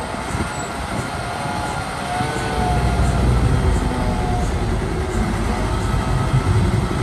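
Shantui DH17B2 bulldozer running under work, its engine getting louder and heavier about two and a half seconds in, with faint wavering whines above it.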